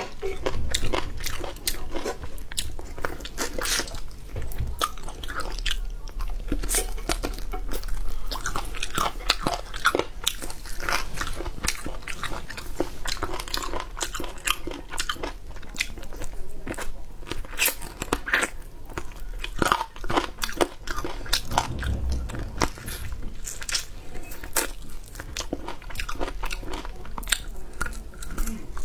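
Close-miked eating sounds: a person biting and chewing, with many irregular crunchy, wet clicks.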